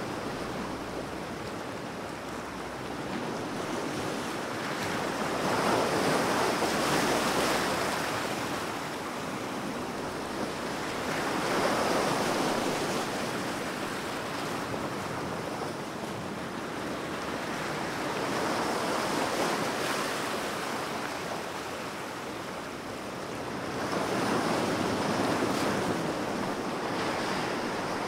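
Ocean surf: waves breaking and washing in. The rush swells and falls away four times, about every six seconds.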